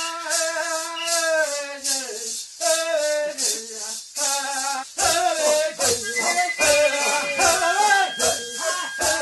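Music with a rhythmic shaker and a melody line but no sung words. About five seconds in, deep drum beats join.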